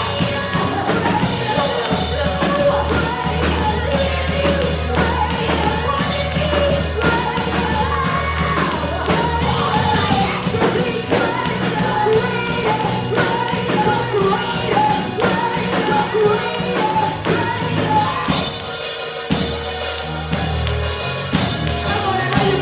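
Live praise-and-worship band music with drum kit, bass and singing at a steady beat. Near the end the drums and bass drop out for a moment, then come back in.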